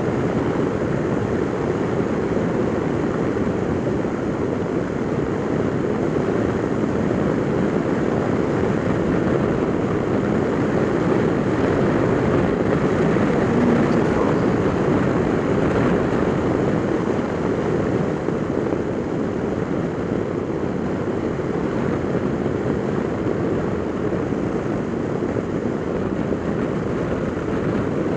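Piaggio MP3 500 scooter riding at a steady speed: its single-cylinder engine drones evenly under a constant rush of wind noise.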